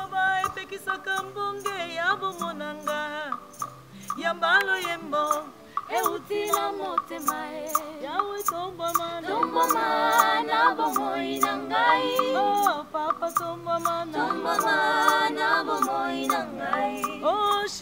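A gospel choir singing a worship song, led by a woman's voice with vibrato, over held keyboard notes and a steady tick of percussion about twice a second. The voices thicken into full harmony about ten seconds in and again near the end.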